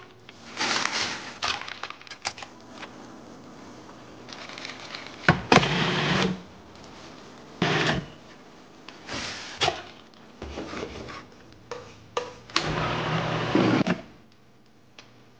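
Kitchen handling sounds: a string of clicks, clatters and short rushing bursts from a food processor's lid and bowl being worked. The longest and loudest burst comes near the end.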